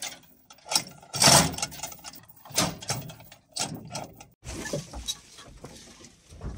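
A hand-operated chain hoist being hauled to tension a chain over a truckload of bamboo: the steel chain rattles and clanks with the hoist's mechanism in a series of pulls, roughly one every second or so.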